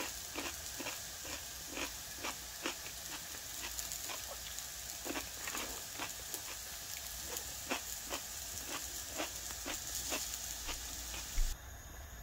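Breaded frozen chicken pieces sizzling in oil in a non-stick frying pan: a steady hiss with irregular crackling pops, about two a second. Near the end the sizzle cuts off, leaving a fainter hiss.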